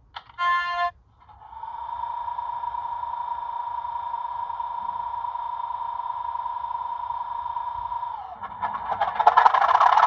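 Bachmann Class 37 model locomotive's DCC sound decoder playing English Electric diesel engine sounds through its small onboard speaker. A few clicks and a short tone come first; from about a second in a steady whining idle takes over, and near the end it turns louder and harsher.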